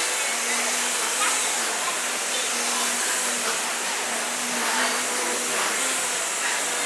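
Steady rushing noise, with a faint low hum that comes and goes.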